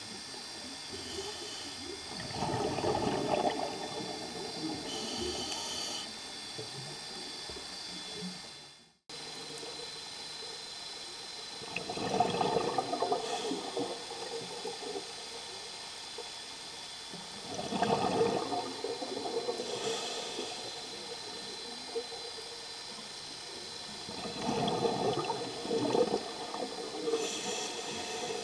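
Scuba diver breathing through a regulator, heard underwater: four gurgling bursts of exhaled bubbles, several seconds apart, over a steady hiss. The sound drops out briefly about a third of the way in.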